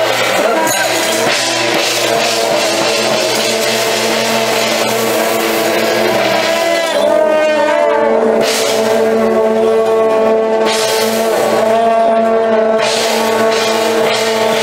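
Temple procession music played live: suona shawms blaring loud held notes, with pitch bends about halfway through, over clashing cymbals and gongs.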